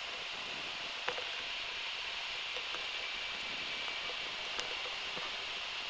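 Steady hiss of the cockpit intercom and radio audio feed between transmissions, with a couple of faint clicks.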